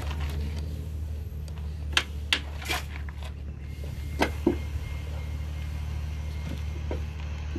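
About five sharp metal knocks and clinks, spread over a couple of seconds, as a new front strut is worked into the steering knuckle, over a steady low hum.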